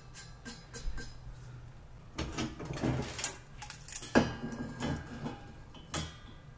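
Bottle jack and steel coil return springs being handled and fitted onto a steel press base: scattered metal clinks, rattles and knocks. The loudest is a sharp knock a little after four seconds in.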